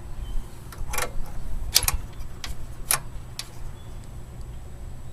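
A handful of sharp, irregularly spaced clicks and knocks as a two-stage snowblower is handled, over a steady low hum.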